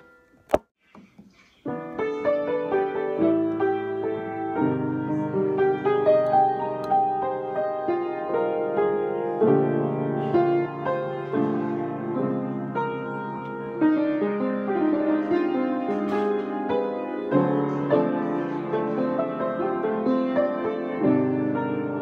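Background solo piano music. Near the start one piece ends, a single sharp click sounds, and after a second or so of near silence another piano piece begins.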